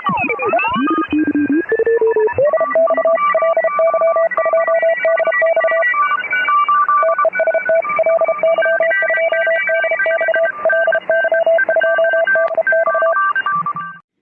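Electronic Morse-code beeps: steady tones at several pitches keyed on and off in short and long elements, layered over one another. Sweeping synthesizer glides fall away in the first second or two, and the beeping stops abruptly near the end.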